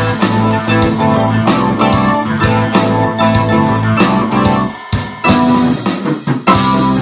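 An electronic keyboard played in a rock song, over guitar, bass and drums. The music drops out briefly about five seconds in, then comes back in.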